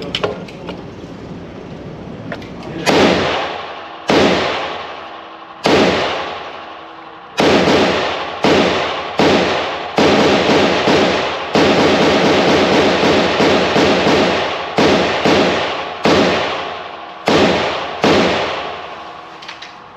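Gunshots at a shooting range, each with a long echoing tail: a few single shots, then quicker strings, with a near-continuous run of fire in the middle.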